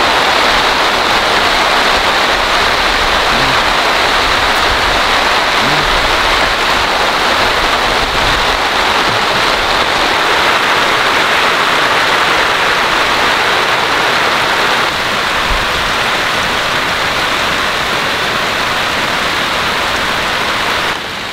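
Heavy downpour: a loud, steady hiss of rain, slightly softer from about fifteen seconds in.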